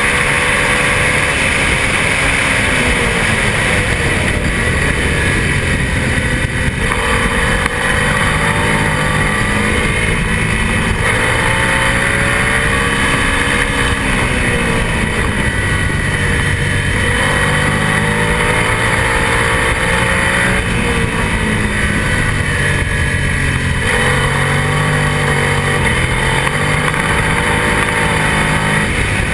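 Onboard sound of a twin-cylinder race motorcycle at speed. The engine revs climb and drop again and again through gear changes and corners, under steady wind rush over the camera.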